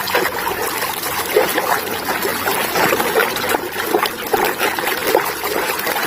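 Water trickling and splashing as a muddy plastic toy is washed, with small irregular splashes throughout.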